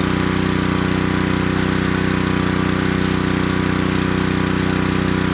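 Ryobi 3000 PSI gas pressure washer's small engine running steadily at a constant speed.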